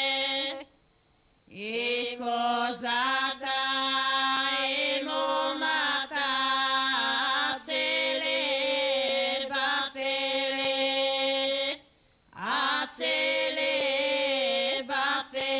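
Women's voices singing a traditional Macedonian harvest song in long held notes with small wavering ornaments, each phrase opening with an upward slide into the note. The singing breaks off twice for breath, about a second in and again near the end.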